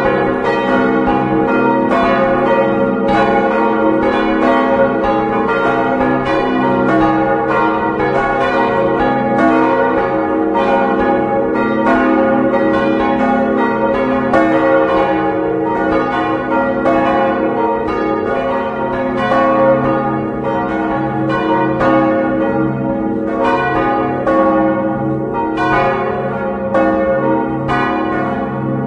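Church bells swinging and ringing together in a Westminster-chord peal, the largest a 1906 Causard bronze bell in C♯3 of about 1.9 tonnes, heard close-up inside the belfry. Strikes overlap a few times a second over a steady hum of sustained bell tones.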